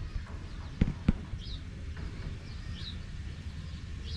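Two quick knocks close together about a second in, then faint short high bird chirps every second or so over a low steady rumble.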